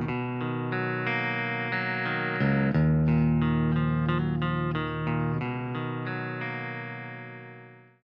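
Electric guitar music with effects, a melodic line of sustained notes that fades out over the last couple of seconds.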